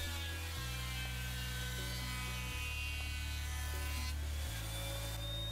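Delta 12½-inch benchtop thickness planer running with a shop vac drawing its chips through a hose: a steady motor whine.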